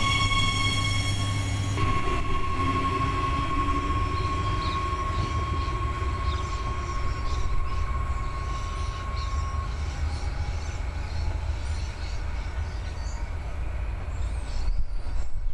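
Adelaide Metro 4000-class electric train running: first passing close by with several steady whining tones over a low rumble, then, after an abrupt change about two seconds in, heard from further off as it approaches, with a low rumble and one steady high whine that fades out about ten seconds in.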